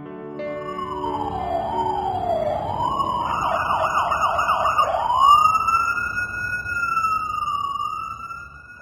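Emergency vehicle siren sounding, with a slow rising and falling wail that switches to a fast yelp for about two seconds in the middle, then back to a slow wail that fades near the end.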